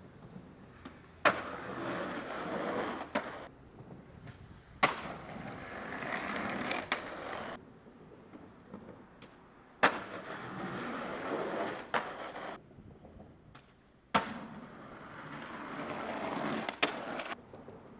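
Skateboard landing with a sharp smack on a concrete bank, then its wheels rolling down the rough concrete for two to three seconds, ending in a sharp clack. This happens four times.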